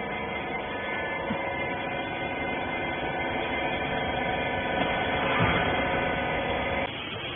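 Hydraulic press baler for wiper rags running: a steady machine hum made of several held tones, cutting off suddenly near the end.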